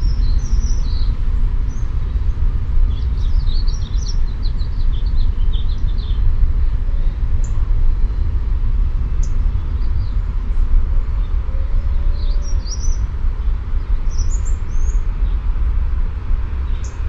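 Birds chirping in scattered short high calls over a loud, steady low rumble.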